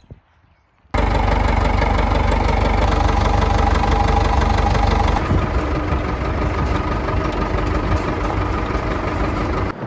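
An engine running steadily with a fast, even pulse. It cuts in suddenly about a second in, and its tone shifts about halfway through.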